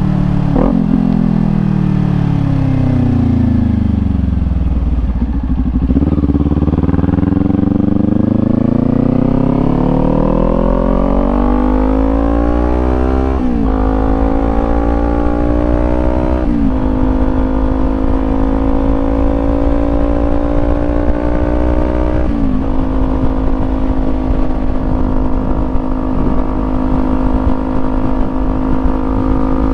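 Kawasaki Ninja 400 parallel-twin engine through a Leo Vince GP Corsa EVO slip-on exhaust. The revs fall for about five seconds, with a gear change near the start, as the bike slows. They then climb through three upshifts and settle into a steady cruise.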